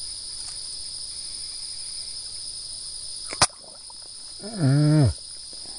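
Steady chorus of insects in swampy grass, a continuous high shrill tone. A single sharp click comes about three and a half seconds in, and near the end a man makes a short voiced sound.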